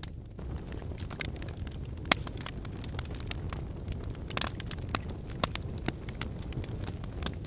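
Fire in a fireplace crackling: a steady low rumble of flames with irregular sharp pops and snaps, the loudest about two seconds in and again about five and a half seconds in.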